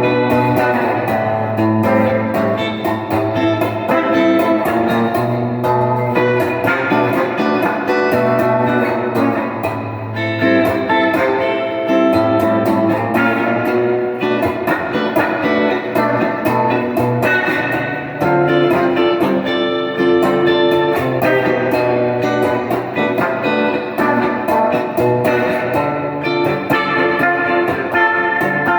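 Donner DST200 electric guitar played through an amp in a bluesy style, mixing low bass notes with picked single-note lines and chords, continuously.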